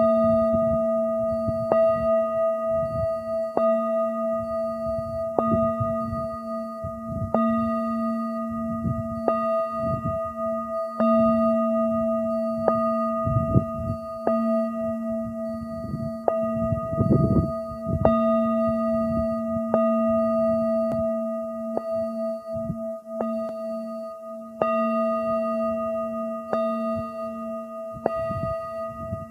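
Singing bowl struck about every two seconds, ringing on continuously with several overtones. A gusty low rumble of wind on the microphone runs underneath.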